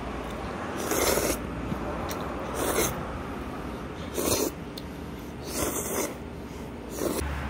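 A person slurping thick udon noodles from a bowl of broth: five short slurps, about a second and a half apart.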